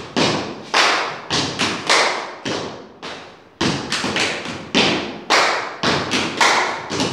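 Body percussion by two people: a rhythmic run of sharp stomps and slaps, about two to four a second, ringing in a bare room, with a short break about three seconds in.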